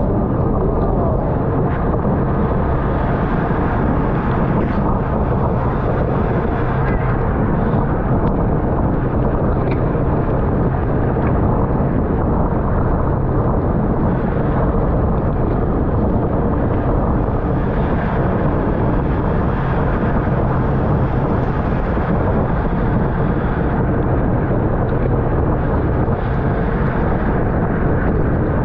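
Steady rush of wind and road noise on the microphone of a bicycle racing at speed in a criterium.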